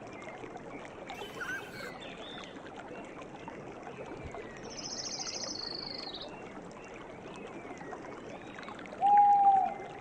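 Forest ambience: many small bird chirps and calls over a steady rushing hiss like running water. A high trill rises above them about five seconds in, and a loud, clear, slightly falling whistled note sounds near the end.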